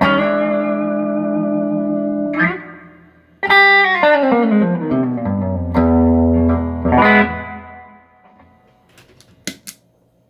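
Electric guitar played through an optical compressor pedal: chords ring out long and even. A bright chord about three and a half seconds in slides down in pitch, a few more chords follow, and the sound dies away about eight seconds in, leaving a couple of faint clicks near the end.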